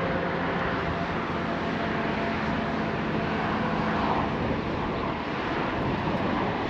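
Mercedes-AMG GT R Pro's twin-turbo V8 with FI exhaust, driving at a steady speed: an even, unchanging mix of engine, tyre and wind noise with a faint low hum that fades about two-thirds of the way in.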